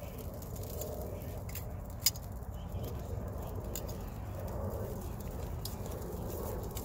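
A few sharp clicks, the loudest about two seconds in, as metal tongs knock against a tripod grill's wire grate while turning tomatoes and jalapeños over charcoal, above a steady low rumble.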